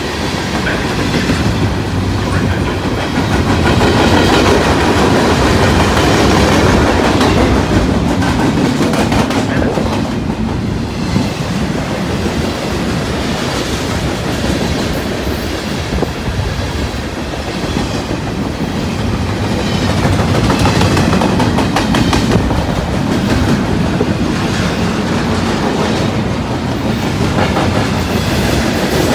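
A BNSF manifest freight train's hopper and tank cars rolling past on the near track: a loud, steady rumble of steel wheels on rail, with clickety-clack of the wheels clicking over the rail joints throughout.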